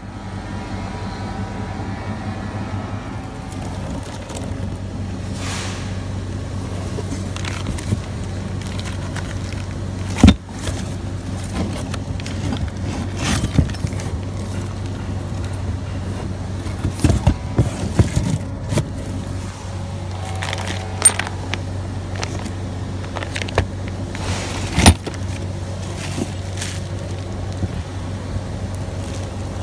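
A diesel truck engine idling steadily with a low hum. Over it, a steel pintle hook and its fittings clink and knock a number of times as they are handled in their cardboard box, with the loudest knocks about a third of the way in and near the end.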